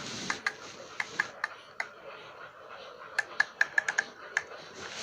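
A run of light, irregular clicks and taps, each with a short ring, coming faster from about three seconds in.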